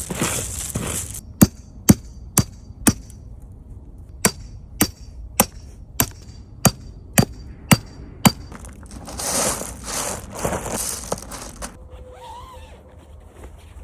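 A series of sharp knocks, each with a brief ring: four, a short pause, then eight more, about two a second. Then a couple of seconds of rustling and scraping.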